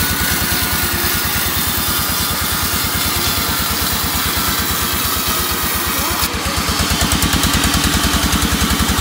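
Vertical reciprocating saw running and cutting through a teak board, a fast, steady chugging beat of blade strokes. From about six seconds in it grows a little louder and harsher.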